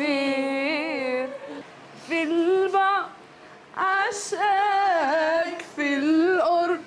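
A woman singing a love song unaccompanied, in phrases of a second or two with held, wavering notes and short pauses between them.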